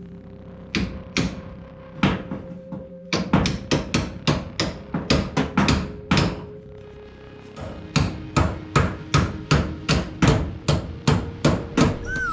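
Hammer blows on the steel rear leaf-spring shackle, driving it into place: a few single strikes, then a fast run at about three blows a second, a pause, and a second run.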